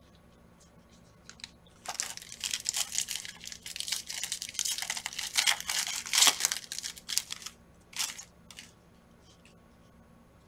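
The foil wrapper of a 2021 Panini Prizm football card pack being torn open and crinkled in the hands. A dense rustle starts about two seconds in and lasts about five seconds, followed by two short rustles.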